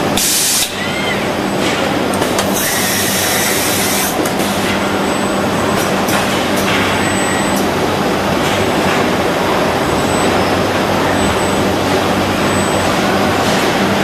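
Steady industrial machinery noise with a low hum from a robotic car-dashboard cutting and finishing cell, broken by two sharp hisses of compressed air: a short one at the start and a longer one of about a second and a half, about two and a half seconds in.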